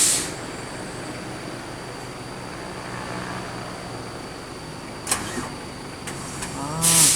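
Bursts of compressed air hissing from a stalled bus's air brake system: a loud one at the start, a shorter one about five seconds in, and a loud one near the end, over a low steady hum. With the last hiss comes a short sound whose pitch bends.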